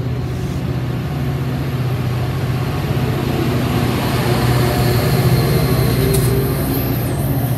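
Metra commuter train of bilevel cars passing close by, its diesel locomotive's engine running steadily over the rumble of wheels on rails and growing louder as the locomotive goes by about five seconds in. A brief high squeal sounds near the end.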